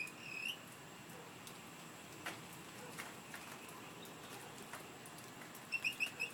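High, squeaky chirps from an unidentified nocturnal animal calling up in a tree: one short chirp that bends up in pitch just after the start, then a quick run of about five short chirps near the end.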